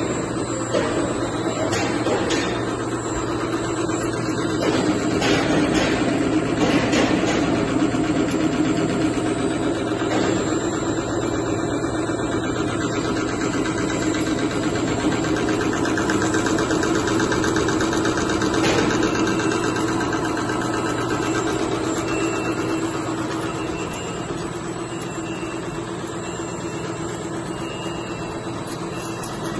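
Lab-scale twin-screw food extruder running: a steady machine hum from its electric drive motors, with a few sharp clicks and knocks, and slightly quieter over the last few seconds.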